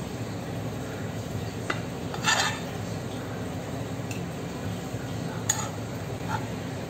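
Metal spoon scraping and clinking against a frying pan and plate as shrimp and bell pepper stir-fry is spooned out, a handful of short clinks with the loudest about two seconds in, over a steady low hum.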